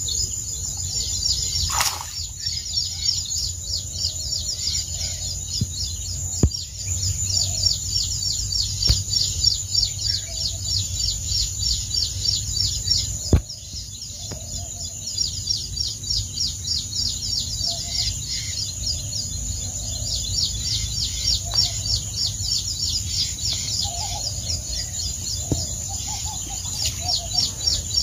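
Small birds chirping continuously in a fast, even, high-pitched rhythm, over a low rumble of wind on the microphone. A couple of sharp clicks stand out, one about two seconds in and one about halfway through.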